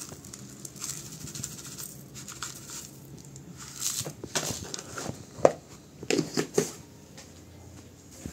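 Crushed eggshell pouring from a plastic jar over a plastic scoop into a plastic bowl of potting soil, a dry crinkling rustle, with a sharp knock about five seconds in and a few lighter knocks soon after.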